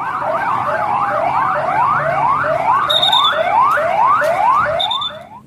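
Police siren in a fast yelp, its pitch sweeping upward again and again about two or three times a second, fading away just before the end.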